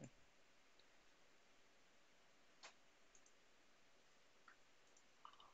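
Near silence with a few faint computer mouse clicks, the clearest about two and a half seconds in.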